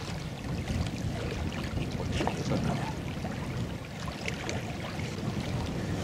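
Strong gusty wind buffeting the microphone with a low rumble, over small wind-driven waves lapping at the bank, and a few faint clicks.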